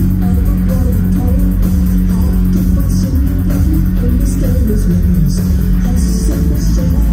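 Live band music through a concert PA, recorded from the crowd: loud, dominated by a heavy, pulsing bass and a steady held low note, with guitar and cymbal hits above.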